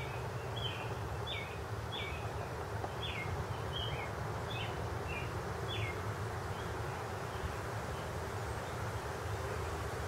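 A small bird calling: a string of short downslurred notes, about two a second, that grows fainter and dies away after six seconds or so. Under it runs a steady low rumble.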